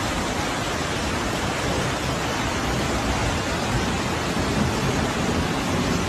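Fast-flowing floodwater rushing through a street: a steady, unbroken rushing noise.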